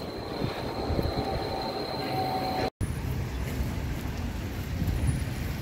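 Street ambience dominated by a steady low rumble of vehicle traffic, with a thin steady high whistle in the first half. A brief dropout a little under three seconds in.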